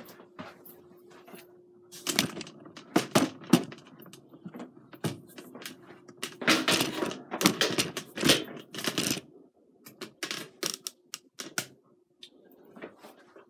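Clatter and knocks of a white ceramic platter of salmon being carried to a gas stove and set down on its cast-iron grates, with handling taps and scrapes, busiest in the middle. A low steady hum stops about two seconds in.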